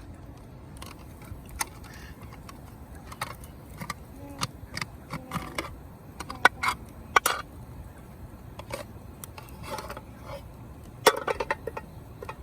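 A scatter of sharp light clicks and clinks, with a cluster of louder ones about halfway through and again near the end, over faint voices.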